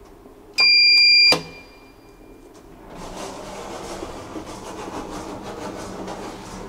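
Elevator call button pressed, answered about half a second later by one loud electronic beep, under a second long, with a short ringing tail. From about three seconds in the elevator doors slide open with a steady rushing noise.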